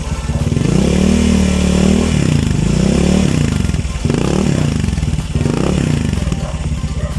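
Honda Click 150 scooter's single-cylinder engine revving through a Replica Pro aftermarket silent exhaust pipe, with about four throttle blips rising and falling in pitch, the first held longest.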